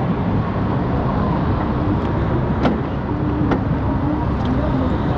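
Road traffic noise heard from an electric bike riding among cars and buses, with a low rumble of wind on the microphone. A faint hum comes and goes from about three seconds in, and there are a few light clicks.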